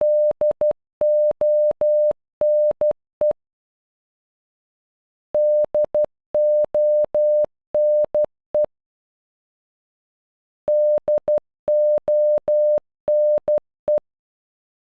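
Morse code beep tone spelling "DONE" (-.. --- -. .) in short and long beeps of one steady pitch, played three times with a silent pause of about two seconds between repeats.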